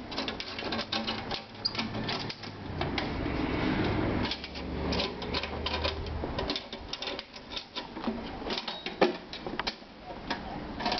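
Aluminium folding carrier cart being handled: many irregular metal clicks, rattles and knocks from its latches, box and handlebar. A low rumble runs for about two seconds midway.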